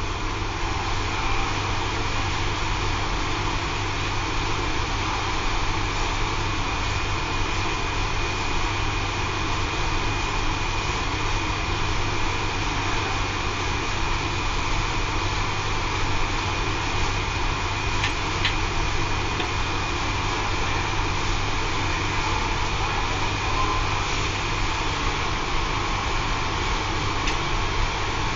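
Steady hum of the circulation pump in a Laddomat 21 charging unit, running as it circulates water from a wood stove, with a faint high whine over a low hum. A few faint ticks come in the second half.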